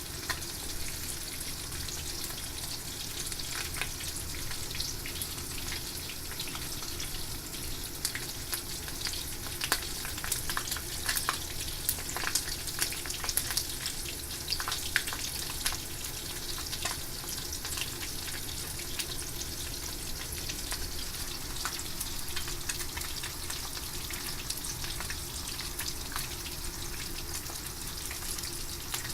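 Horse mackerel frying in hot oil for nanban-zuke: a steady sizzle with frequent crackles and pops, busiest around the middle.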